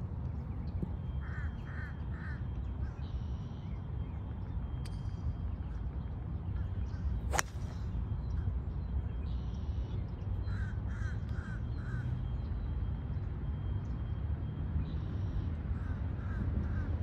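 A golf driver strikes the ball once, a sharp crack about seven seconds in, over a steady low rumble of nearby road traffic. A bird calls in quick runs of three or four notes, three times.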